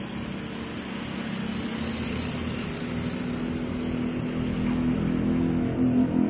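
A motor or engine running steadily with a low pitched hum, growing gradually louder toward the end.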